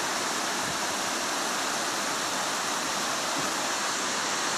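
River rapids rushing over rocks, a steady unbroken sound of fast-flowing water.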